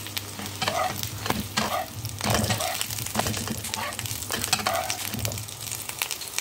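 Small msemen flatbreads sizzling and crackling in hot oil in a frying pan, while a metal slotted spatula is worked under them to lift them out.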